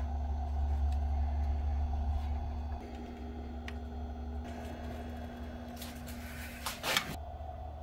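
Steady low hum and whir from the small cooling fan of a 54.6 V e-bike battery charger, with one brief handling knock just before seven seconds in.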